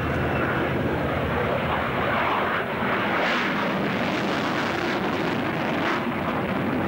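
Loud, steady jet noise from a Panavia Tornado F3's twin RB199 turbofan engines on a low display pass, taking on a harsher, hissier edge between about three and six seconds in as the jet banks away.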